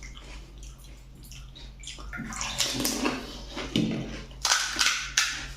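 Pani puri (phulki) being eaten close to the microphone: irregular wet crunching and slurping of the water-filled puris, getting louder and busier from about two seconds in.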